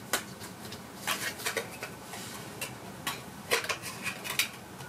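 Calico cat grooming itself, its tongue making quick sharp licking clicks, one alone and then in short irregular runs.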